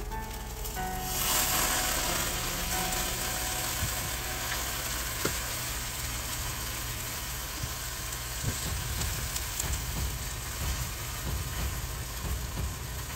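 Steady sizzling hiss from a saucepan of cream sauce on a red-hot electric coil burner, with a few faint utensil clicks.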